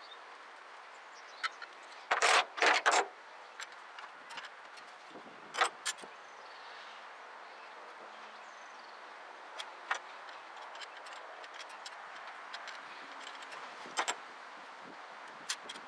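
Scattered metallic clicks and clanks of hand tools and small parts as a carburetor is unbolted, with a quick loud cluster of clanks about two seconds in and single clicks later.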